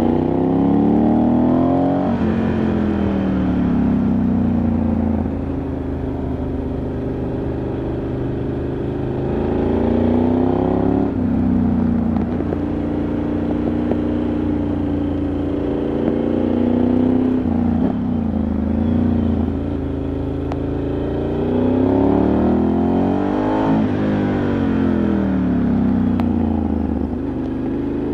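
Ducati Multistrada 1100S's air-cooled L-twin engine under way, heard onboard: the revs fall at the start, hold steady, then climb and drop again several times as the rider accelerates, shifts and slows, with wind noise underneath.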